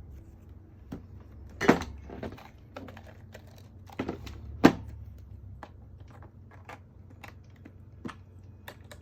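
LEGO pieces being handled and pressed together: irregular light plastic clicks and rattles, with two louder knocks about two seconds in and again near five seconds.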